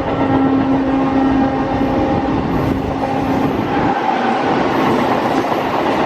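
A train horn sounding one held note that stops about two seconds in, followed by the steady noise of the train running along the track.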